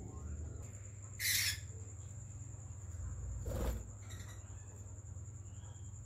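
Short, harsh calls from caged Gouldian finches, one about a second in and another past three and a half seconds, over a steady low hum and a faint high whine.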